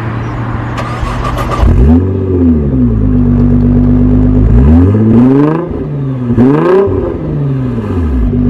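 Nissan GT-R's twin-turbo V6, built to 800 hp and breathing through a Linney Titan exhaust, starts up at the very beginning and is revved twice. The engine speed is held briefly after the first rev and drops back to a steady idle near the end.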